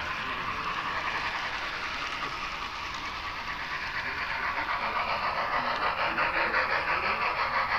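HO-scale model train running on the layout: a steady noise, joined about halfway through by a pulsing rhythm of about three beats a second that grows louder.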